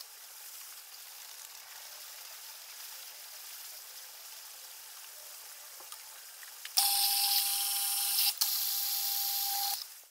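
Milling machine at work, its sound sped up about eightfold into a high-pitched whine with a steady tone. Only a faint hiss is heard for the first several seconds. The whine comes back about seven seconds in, breaks off briefly, then fades out.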